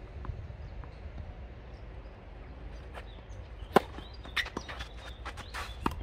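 A tennis racket strikes the ball on a forehand with one sharp pock a little after halfway through, a fainter hit or bounce coming about a second before it. Quick footsteps then scuff and patter on the clay court.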